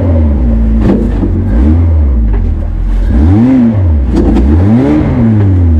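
Ariel Nomad off-roader's engine revving up and falling back again and again, about every second and a half, as the car struggles to climb out of a deep hole on a slope after stalling.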